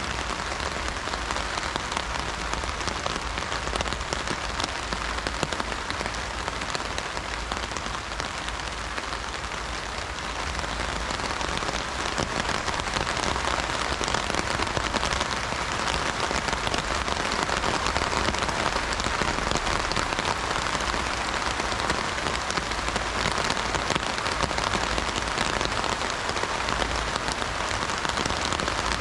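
Heavy rain falling on an umbrella: a dense, steady mass of drop impacts on the canopy, growing slightly louder about ten seconds in.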